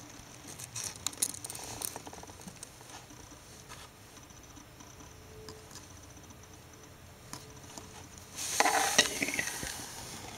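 Pet rats scrabbling and rustling in the bedding, with small scratchy clicks, then a louder burst of rustling fabric about eight and a half seconds in.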